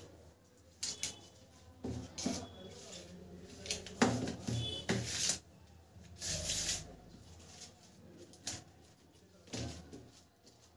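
Small steel plates knocking and scraping on a tabletop while a mixture is pressed flat in them by hand: a series of irregular clicks and knocks, the loudest about four seconds in.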